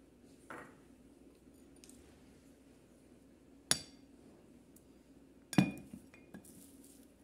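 Glass dishes clinking as they are set on a table: a soft tap about half a second in, a sharp clink a little before four seconds, and a louder knock with a short ring near six seconds.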